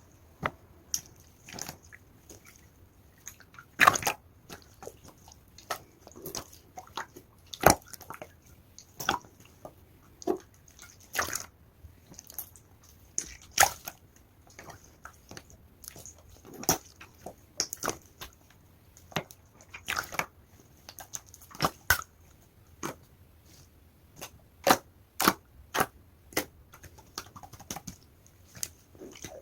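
Clear slime being pressed and squeezed by hand, making irregular sharp pops and squelches, about one or two a second, some much louder than others.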